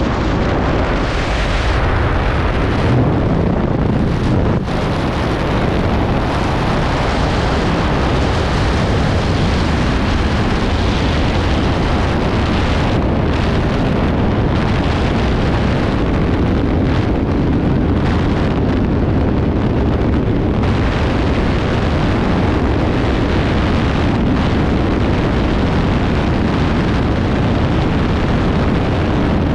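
Freefall airflow buffeting the camera's microphone: loud, steady wind noise.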